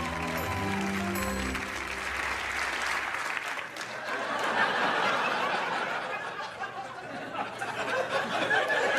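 A short musical sting that cuts off about three seconds in, followed by a studio audience laughing and applauding.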